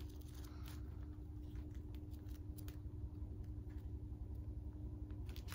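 Thin Bible pages rustling and being leafed through in short, faint bursts, over a steady low hum.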